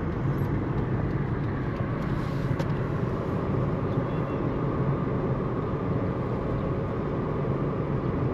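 A car driving along: a steady engine hum and road noise.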